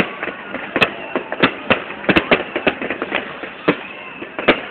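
Fireworks going off in an irregular string of sharp bangs and cracks, about three a second.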